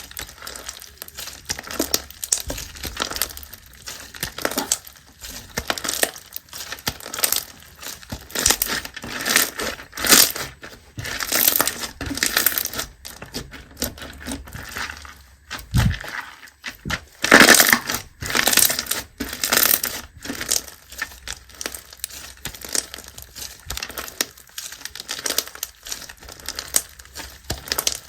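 Slime being squeezed and pressed by hand, giving dense, irregular crackling and crunching with a few louder bursts.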